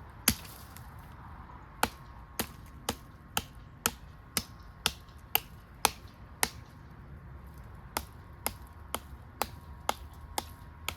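Handmade carbon-steel bushcraft knife chopping into a green sapling about an inch thick: one hard strike, then steady chops about two a second, with a short pause in the middle.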